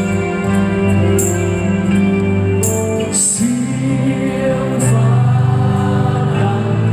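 Live rock band playing a song in a large arena: a singer over sustained guitar and bass chords, with cymbal hits every second or two, heard from the audience seats.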